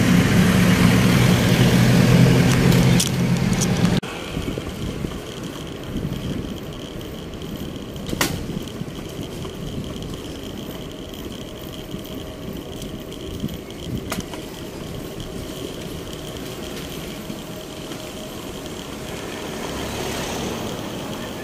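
Road traffic: a motor vehicle's engine runs loud and low for about four seconds and cuts off abruptly. Then a quieter, steady traffic hum follows, with two sharp clicks and another vehicle swelling near the end.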